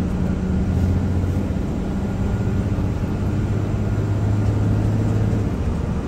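A vehicle engine running steadily with a low hum; its deepest tone drops away about five and a half seconds in.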